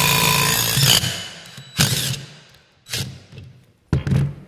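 20-volt cordless driver running the threaded screw of a hand rail punch, driving the hardened steel dies through the rail to punch its slotted holes. It runs steadily for about the first second, then three short bursts about a second apart.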